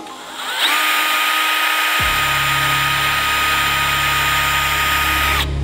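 Electric drill spinning up about half a second in and running steadily with a high whine for about five seconds, drilling a hole in the glider's fuselage, then stopping just before the end.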